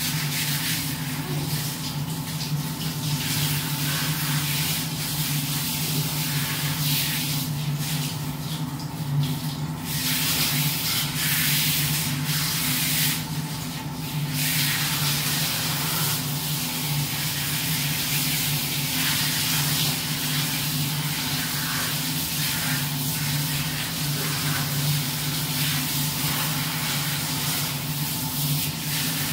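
Handheld shower head spraying water onto a small dog's coat: a steady hiss of running water that dips briefly a couple of times, over a low steady hum.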